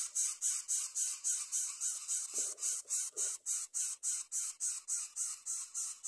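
Greater coucal nestlings begging with a fast series of high, raspy calls, about four a second.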